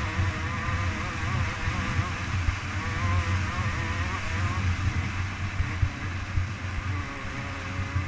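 Dirt bike engine running hard at speed, its pitch wavering up and down as the throttle is worked, over a low rumble of wind buffeting the onboard camera.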